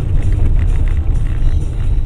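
Steady low rumble of a moving car's road and engine noise, picked up inside the cabin by the dashcam.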